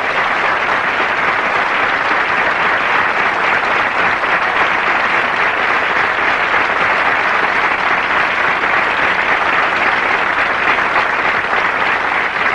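Studio audience applauding steadily after a rock song.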